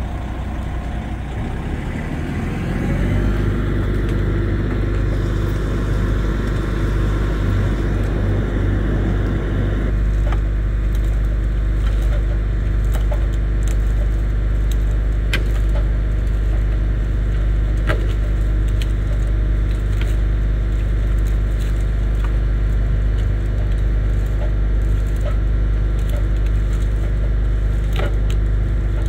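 A heavy wrecker tow truck's diesel engine runs steadily. From about ten seconds in, scattered sharp snaps and cracks of breaking wood and branches sound over it as the rolled delivery truck is pulled through the brush.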